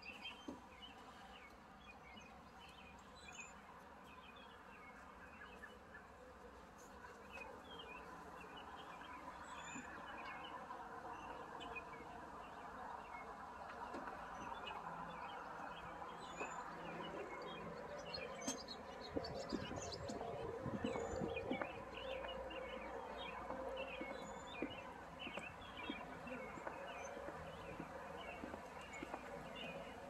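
Small birds chirping over a faint, steady outdoor background noise that grows louder after the first several seconds. A few low knocks come about twenty seconds in.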